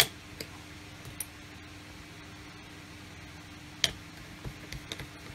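Sharp clicks and light taps of small plastic items being handled on a workbench: one sharp click at the start, another just before four seconds in, and a few lighter ticks after. Under them runs a steady faint hum.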